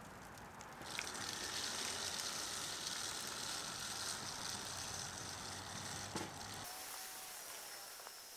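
A steady fine hiss of small granules pattering on asphalt, coming in suddenly about a second in and easing near the end.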